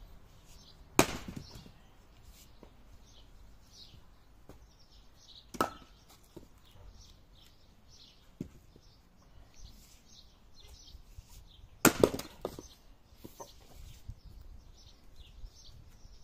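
Axe blows splitting firewood on a chopping block: a sharp crack about a second in, another near six seconds, and a loud double strike near twelve seconds, with a smaller knock between. Small birds chirp throughout.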